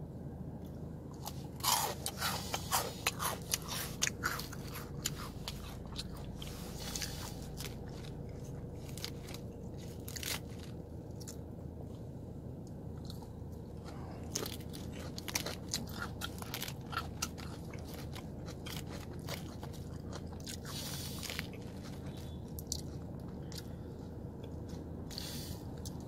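Someone biting and chewing crunchy food, in clusters of crisp crunches that are loudest a couple of seconds in, over a steady low hum.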